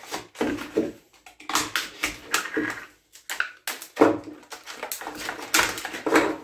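Knife slicing through thick heat-shrunk PET bottle plastic, which crackles and crinkles in irregular bursts as it is cut and peeled off a wooden form. The shrunk plastic has become thick and hard to cut.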